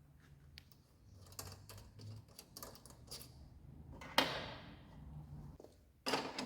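Hand tools working the strut top mount nut of a Toyota AE86: irregular ratchet-like clicks and light metal clinks, with a louder metallic clatter about four seconds in and another near the end. The worn nylon-insert nut undoes too easily, its nylon no longer gripping the thread.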